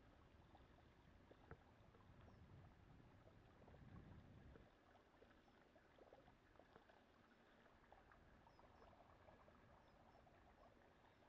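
Faint splashing and crackling of a bicycle tyre running through shallow floodwater, with a low rumble that drops away about four and a half seconds in.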